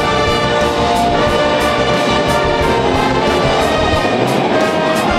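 College pep band's brass and saxophone section, sousaphones, trumpets and trombones included, playing a loud tune in chords over a steady beat of about three strokes a second.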